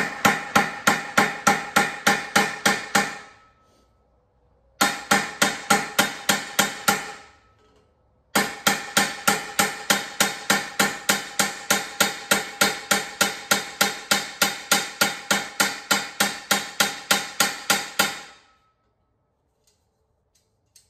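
Hammer peening replacement rivets on a copper pan's handle, the pan held on a steel bar: quick metal-on-metal blows, about four or five a second, in three runs with short pauses between, each strike ringing. The hammering sets and tightens the new rivets to firm up the wobbly handle.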